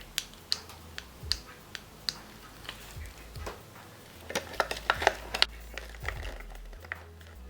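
Light clicks and taps of small rubber toy eggs tipping and knocking on a plastic toy fridge shelf. The taps are spaced out at first, then come in a quick flurry about four to five and a half seconds in.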